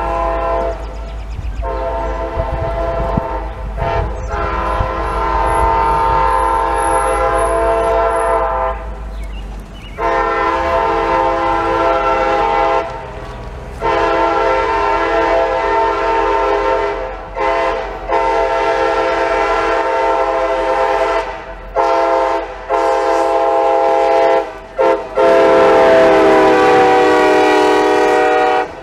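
Multi-chime air horn of a CSX track geometry train's locomotive sounding a series of long and short blasts as the train approaches. The blasts grow louder, and the chord slides down in pitch during the last, loudest blast as the train passes.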